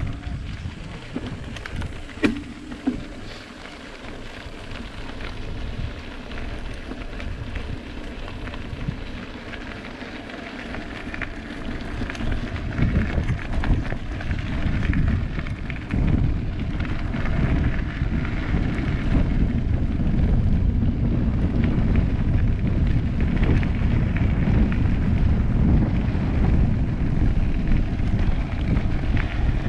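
Wind buffeting the microphone and bicycle tyres rumbling over a rough track on a downhill ride, growing louder about twelve seconds in.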